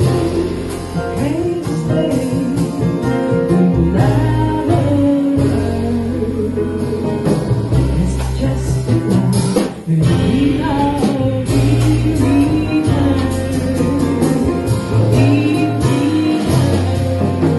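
Live jazz combo playing: a woman singing over piano and plucked double bass.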